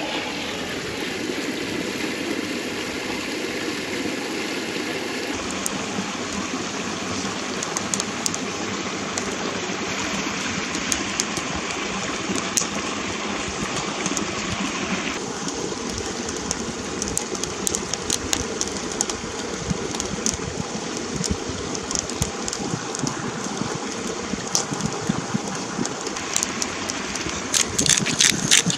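Stream water running steadily over stones, its sound changing abruptly twice, with scattered sharp clicks and a denser run of clicks near the end.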